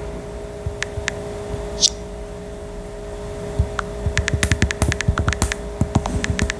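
Long gel-extension fingernails tapping on a tablet's glass touchscreen while typing: a few scattered taps at first, then a quick run of taps from about four seconds in. A steady low hum runs underneath.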